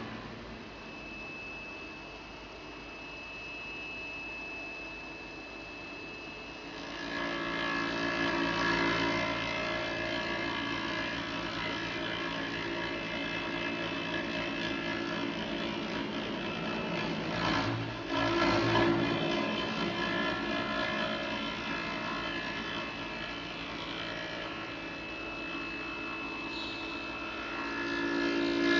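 CNC foam-milling machine running, its spindle driving a long router bit through EPS foam: a steady machine whine with several held tones. It gets louder about seven seconds in and swells briefly near the middle.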